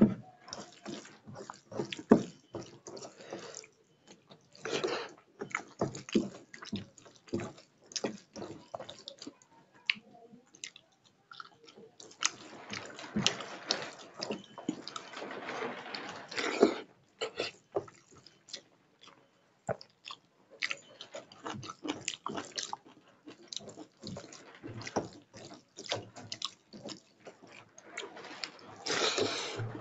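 A person eating rice mixed with dal by hand from a steel plate: wet mixing sounds, chewing and mouth smacks as irregular clicks, with a few longer stretches of denser noise.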